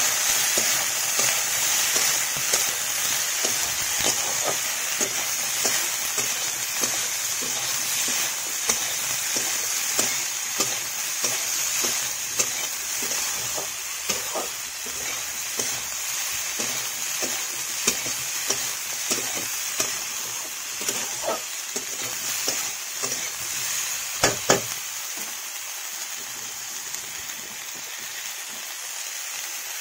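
Cauliflower and potato pieces sizzling in hot oil in a steel kadhai. The steady sizzle is broken by frequent small clicks and scrapes as they are stirred, with a couple of sharper knocks about three-quarters of the way through. The sizzle slowly grows quieter.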